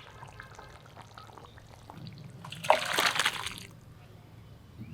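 A sharp clink about halfway through, then about a second of liquid splashing or pouring, amid faint clatter of cookware.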